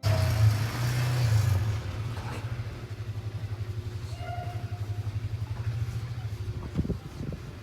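A motor vehicle's engine running with a low, rapidly pulsing rumble.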